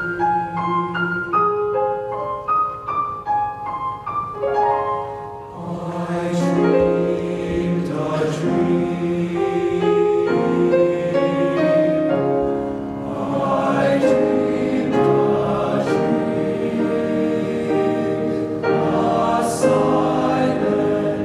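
Young men's choir singing with piano accompaniment. For the first few seconds the piano plays short rippling notes over a few held low tones. About five seconds in, the full choir comes in with sustained chords and grows louder.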